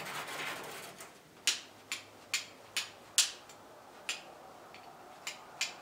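Hand-held flint striker scraped against flint, about eight short, sharp strikes at uneven intervals, made to throw sparks and start the forge fire.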